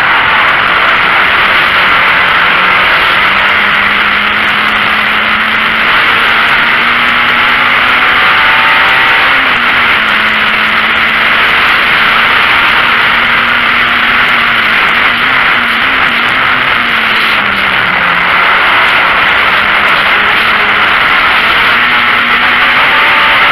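VW Golf Mk1 race car's four-cylinder engine running hard, heard from inside the cabin under a loud steady hiss of wind and road noise. The engine note holds high, then drops and climbs back a few times, most clearly about two-thirds of the way in.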